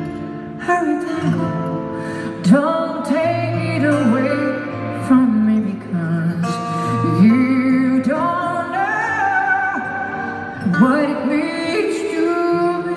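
A woman singing a slow ballad live into a microphone, with long held and sliding notes, accompanied by acoustic guitar and amplified through an arena sound system.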